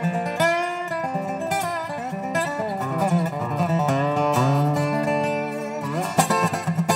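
Background music: an instrumental stretch of a country-folk song, led by plucked guitar, with notes that slide in pitch.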